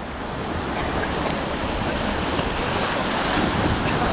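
Whitewater of the Beas River rushing steadily past a raft, with wind buffeting the microphone.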